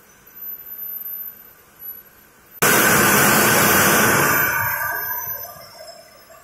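A sudden loud burst of hissing noise about two and a half seconds in, holding for over a second and then fading away over the next two seconds, over a faint steady background.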